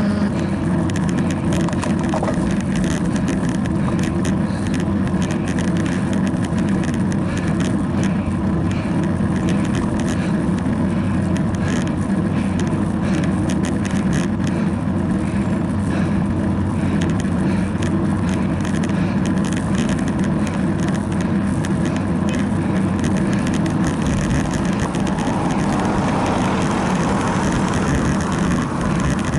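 Wind rushing over the microphone of a camera mounted on a moving road bicycle, with tyre and road noise and frequent small rattles and ticks from the mount over bumps. A car drives past over the last few seconds.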